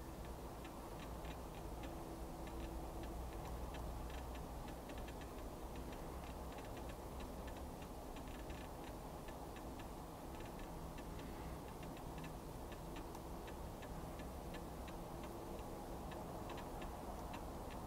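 Faint, unevenly spaced ticking, several ticks a second, over a steady low hum.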